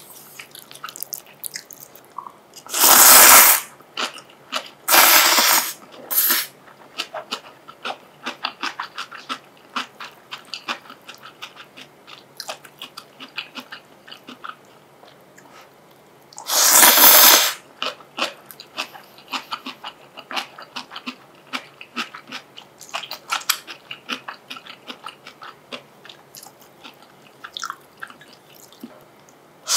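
Close-miked eating of instant ramen: noodles slurped loudly three times, twice in the first several seconds and once around the middle, with wet chewing and mouth clicks in between.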